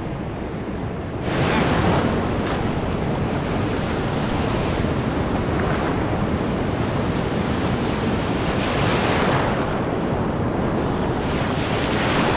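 Surf breaking on the shore, a steady rushing wash that swells about a second in, again around nine seconds and near the end, with wind buffeting the microphone.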